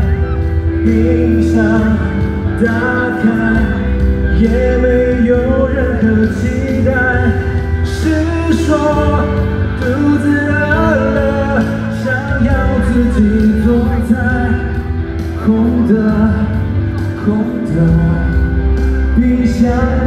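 Male singer singing a pop song live into a microphone over a band, heard from among the audience.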